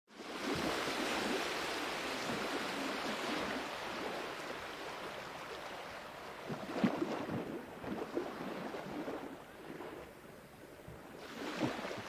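Sea waves washing in, cutting in suddenly out of silence: a broad wash that slowly fades, with small splashes and gurgles about halfway through and another surge of water near the end.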